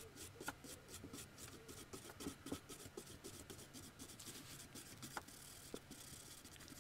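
Hand wire brush scrubbing surface rust off the round steel bar of a vintage watchmaker's lathe: faint, quick back-and-forth scratching strokes, about four a second, with a few light knocks of the metal in between.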